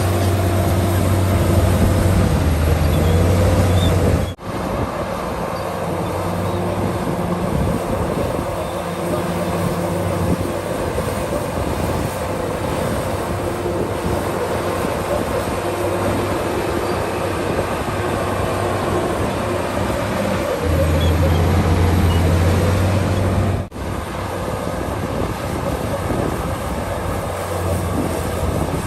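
Komatsu D65PX bulldozer's diesel engine running steadily while working, its low drone swelling louder near the start and again about 21 seconds in. The sound cuts out briefly twice, about four seconds in and near the end.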